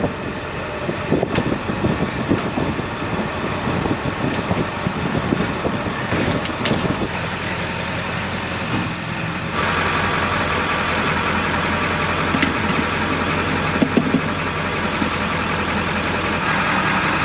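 Truck driving on the road: engine and road noise, changing about ten seconds in to a steadier, slightly louder engine hum.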